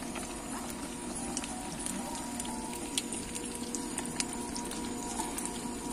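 Sausages sizzling in hot oil in a frying pan on a portable gas stove, a steady sizzle with scattered small pops and spits.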